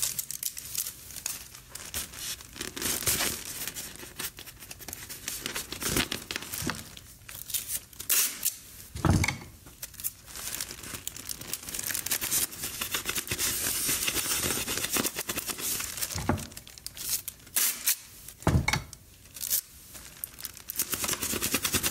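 Foil balloon crinkling and adhesive tape being pulled and pressed on as tape tabs are fixed to the balloon: dense, irregular crackling with a few louder sharp crackles.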